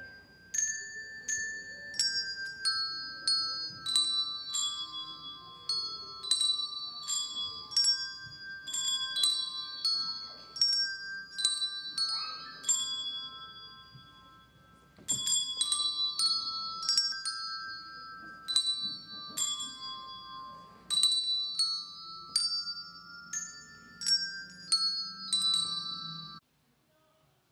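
A children's handbell choir ringing small handbells, one ringing note after another in a slow melody, with a short pause about halfway through. The tune cuts off abruptly near the end.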